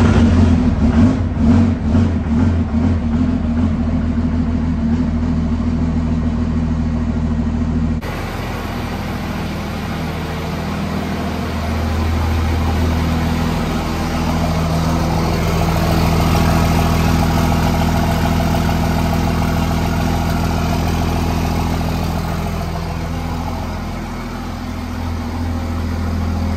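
Pickup truck's diesel engine running at idle just after its first start in almost three weeks, a steady engine note. About eight seconds in the recording cuts and the engine keeps idling, the note swelling and easing a little later on.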